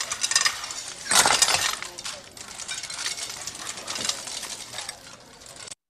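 Canteen clatter of metal bowls and spoons on tables, with a loud crash about a second in. It cuts off suddenly near the end.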